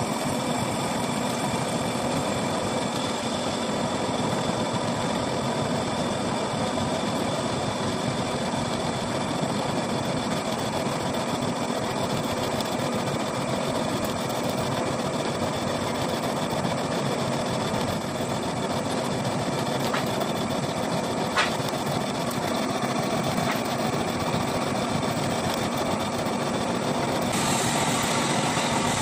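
Metal lathe running steadily, turning a radial drill's splined spindle shaft, with a steady mechanical whine. A single brief click about two-thirds of the way through, and a brighter hiss shortly before the end.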